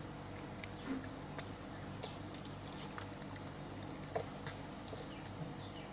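Soft, scattered wet clicks and small ticks from a mother cat with her newborn kittens, typical of licking or suckling, over a steady low hum. Two sharper clicks stand out about four and five seconds in.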